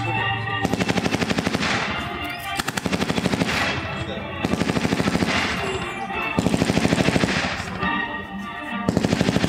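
Repeated bursts of machine-gun fire, each about a second long at roughly ten rounds a second, with about a second's pause between bursts. Five bursts in all.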